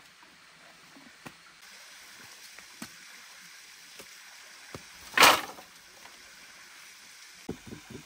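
A bundle of dry sticks dropped onto rocks with one brief, loud clatter about five seconds in, among a few light knocks of wood, over the faint steady run of a stream.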